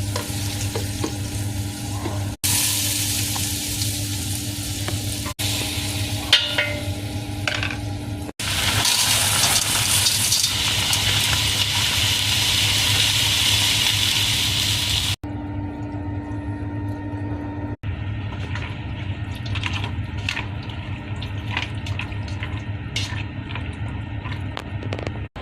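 Sopas being cooked in a pot, in several short cut clips: food sizzling and being stirred, with a strong steady sizzle in the middle and scattered utensil clicks and scrapes near the end, over a steady low hum.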